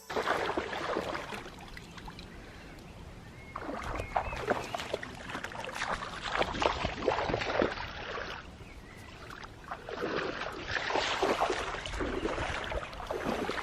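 Shallow water splashing and lapping in uneven bursts that swell and fade.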